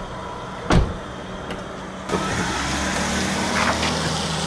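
A heavy car door slams shut about a second in on a Rolls-Royce Phantom Drophead Coupé. From about two seconds in, its V12 and the tyres on the wet pavement give a steady rise in running noise as the car moves off.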